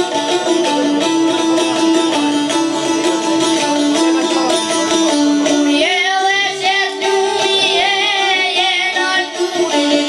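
Çiftelias, Albanian long-necked two-string lutes, playing a plucked folk melody. About six seconds in, a young boy's high voice comes in singing over them.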